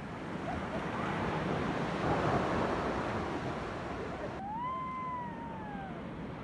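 Sea waves washing onto the beach, the surf swelling to a peak about two seconds in and then easing off. A little past the middle, one long call rises and then falls slowly in pitch over about a second and a half.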